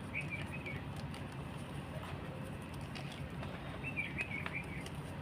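Gym chalk being crushed, with faint scattered crunches over a steady low hum. A small bird chirps twice in the background, a short warbling phrase near the start and another about four seconds in.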